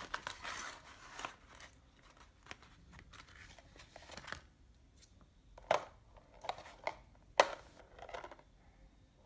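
Plastic packaging rustling and crinkling as small repair-kit parts are handled, with a few sharp clicks, the loudest about halfway through and near the end, as parts are picked up and set down.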